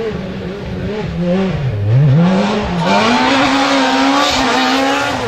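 Rally car engine working hard: its pitch falls and rises a few times through gear changes and lifts in the first two seconds, then climbs and holds at high revs under hard acceleration with a loud hiss over it. The sound changes abruptly at the very end.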